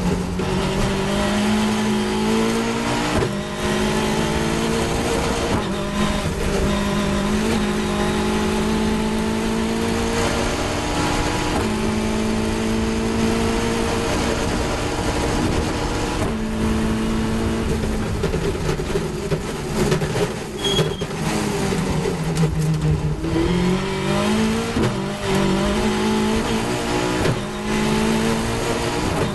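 Caterham 420R race car's 2.0-litre Ford Duratec four-cylinder at full racing effort, heard onboard. It revs up through the gears with a quick upshift every few seconds, drops in pitch through a run of downshifts under braking about three-quarters of the way in, then pulls hard again. Wind and road noise rush past the open cockpit throughout.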